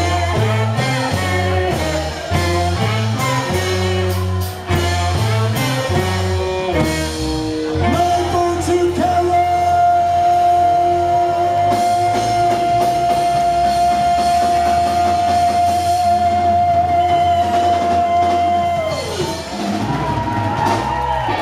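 Ska band playing live in a hall: a bouncing bass line with drums, then about eight seconds in one long held note that lasts some ten seconds before falling away near the end.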